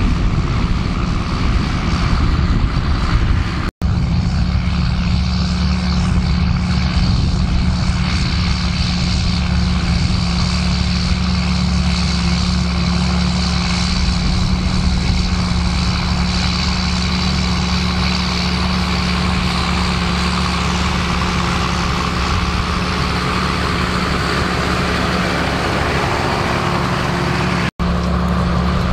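John Deere 7810's six-cylinder diesel engine running steadily under load, pulling a spring-tine cultivator through the soil. It is a constant low hum, broken twice by a very short gap, about four seconds in and near the end.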